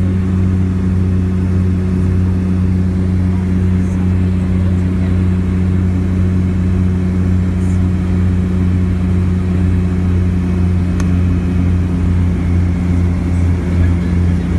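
De Havilland Canada Twin Otter's turboprop engines and propellers droning steadily in the cabin on the approach to the beach landing: a low hum with a second, higher tone above it. Near the end the hum begins to throb.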